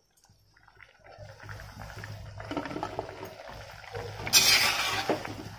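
Turmeric water boiling in a wok of parboiled drumstick pods, with a slotted spoon stirring and scooping the pieces out, starting about a second in. A louder scrape and splash comes near the end.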